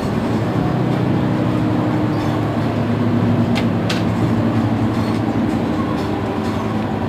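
Mercedes-Benz Citaro C2 city bus engine idling steadily while the bus stands at a stop, with two short clicks a little past the middle.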